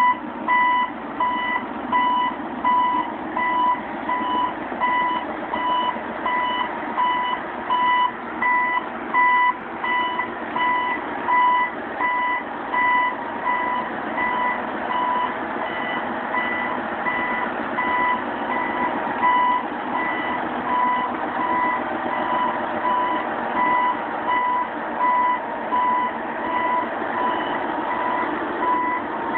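A CAT AD40 underground mining truck's reversing alarm beeping steadily at an even pace, over the steady rumble of the truck's engine as it moves.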